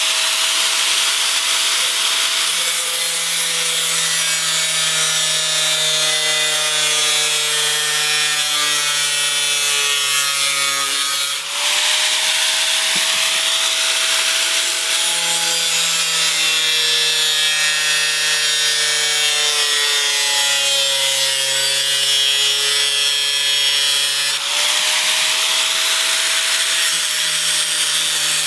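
Power tool cutting thin sheet metal, a continuous harsh rasping noise with a steady whine. It breaks off briefly twice and resumes.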